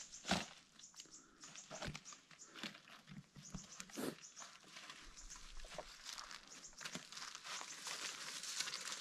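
Dry leaves and twigs on the forest floor rustling and crackling as they are scraped and gathered by hand. There is one sharp knock near the start, and the crackling grows denser toward the end.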